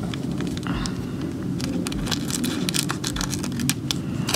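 Small scissors snipping through a sheet of thin nail transfer foil, with the foil crinkling as it is handled: a quick irregular run of sharp snips and crackles.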